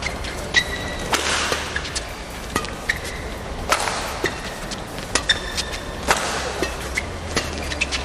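Badminton rally: rackets striking the shuttlecock again and again, with a few harder hits and short high squeaks between the shots.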